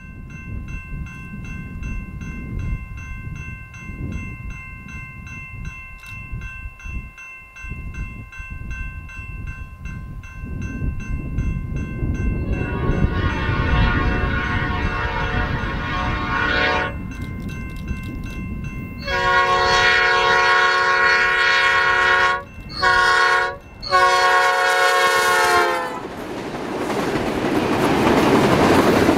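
Diesel-hauled grain train approaching and passing: its engine rumble builds as the locomotive sounds its horn twice, a blast of a few seconds and then a longer one broken by two brief gaps, before loud wheel and engine noise as it goes by. Through the first half, steady bell-like ringing tones with a fast repeating tick, typical of level crossing bells.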